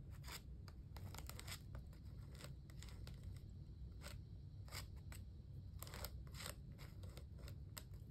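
Faint, irregular clicks and scratchy scrapes of hands working craft supplies on a table: a plastic stencil, palette knife and stencil butter.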